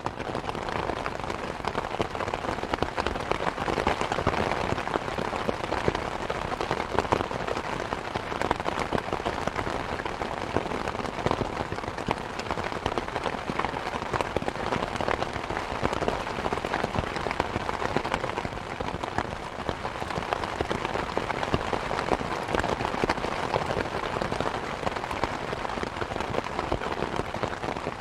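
Steady rain falling on a surface, a dense patter of many small drops.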